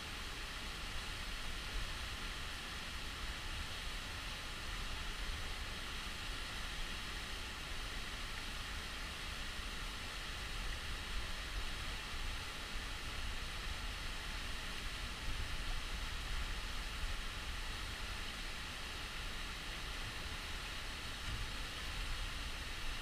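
Waterfall and a shallow rocky creek rushing: a steady, even hiss of water with a low rumble underneath.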